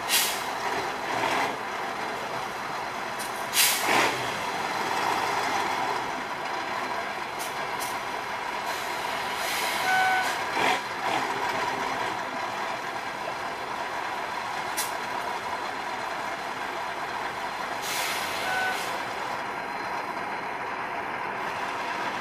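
Tatra 813 8x8 truck's diesel engine running steadily as the truck crawls at low speed, with short sharp hisses of air from its brakes near the start, about four seconds in and near the end. A short beep sounds about halfway through and again near the end.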